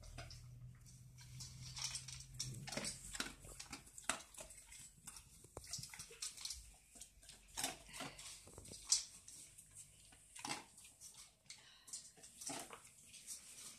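Old English sheepdog eating from a metal bowl while lying down: irregular crunching and chewing with clinks of the bowl, the sharpest about nine seconds in.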